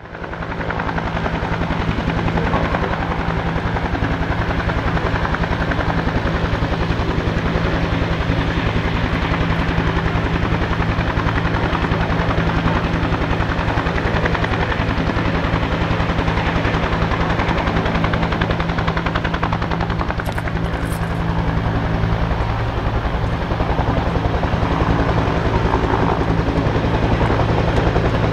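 Military turbine helicopter running, its rotor beating steadily over a constant engine hum, rising in over the first second.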